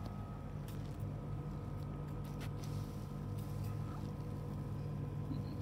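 A steady low hum with several faint constant tones above it, and a few faint clicks and rustles.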